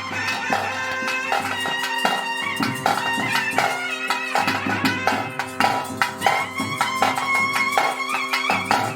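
Bhuta kola ritual music: a reed pipe plays a winding melody over a steady drone, with frequent drum strokes.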